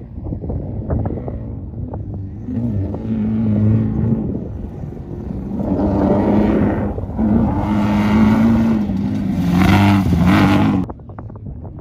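Off-road desert race buggy's engine coming up and passing close, its pitch rising and falling with the throttle, with a rushing noise over it. The sound drops off suddenly near the end.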